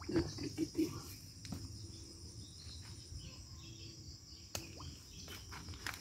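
Steady high-pitched buzzing of insects, crickets or cicadas, with a few soft clicks and rustles of people moving on dry leaf litter.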